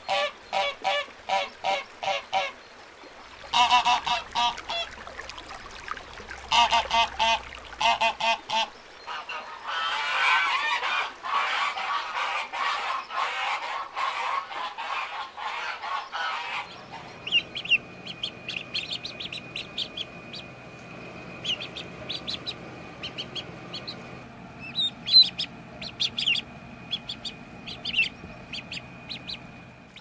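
Flock of domestic geese and ducks calling: rapid honks and quacks, about four a second, in bursts and then a dense stretch. About halfway through the calling gives way to a quieter stretch of short high chirps over a steady hum.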